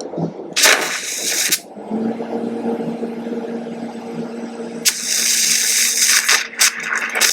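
TIG welding arc hissing in two spells, switched on and off at the torch: a short burn about half a second in, then a longer, sputtering burn from about five seconds with crackles and dropouts, as the tungsten electrode is melted. A steady hum from the welding machine runs underneath.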